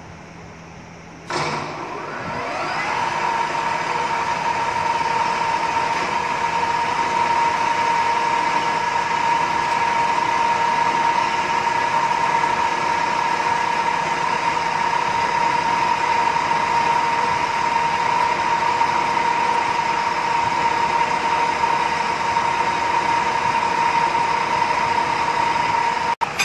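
Centre lathe switched on about a second in, its chuck spinning up over a couple of seconds, then running steadily with a constant whine.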